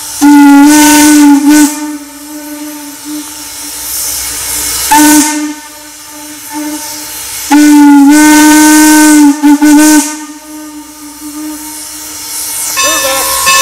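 Steam whistle of Norfolk and Western 475, a 4-8-0 steam locomotive, blowing a series of blasts: a long blast, a short one, then another long blast followed by two quick toots, with steam hissing in between. Near the end a higher-pitched steady tone starts up.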